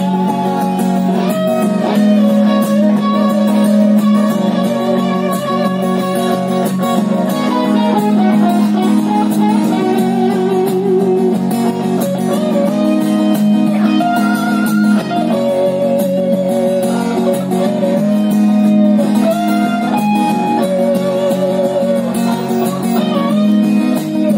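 Acoustic and electric guitar playing live together: strummed acoustic chords under an electric guitar lead melody with wavering vibrato on its held notes.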